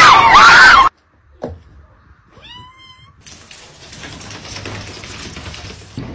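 A cat meows once, a short call rising then levelling off, about two and a half seconds in. Before it, a loud sound with wavering pitch cuts off abruptly just under a second in. From about three seconds a steady hiss runs on.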